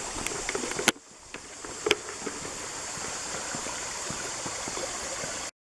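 Steady outdoor rushing noise, with a sharp click a little under a second in and another near two seconds. The noise cuts off abruptly just before the end.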